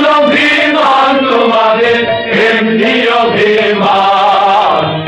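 Group of voices singing a chant-like patriotic song together, one continuous melody that glides between held notes.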